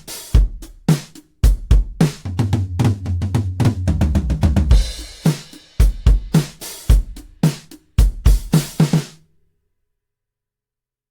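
Toontrack EZdrummer 3 sampled drum kit playing a kick, snare and cymbal groove, with a fuller passage with a cymbal crash around the middle. The pattern stops about nine seconds in.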